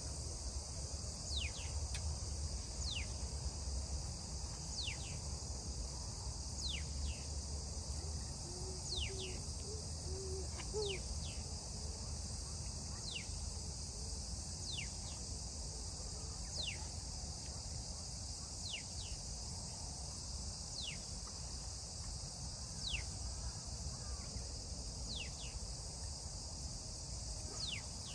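Steady high-pitched chorus of insects in riverside grass, with short thin calls sweeping downward repeated every second or two, over a low rumble.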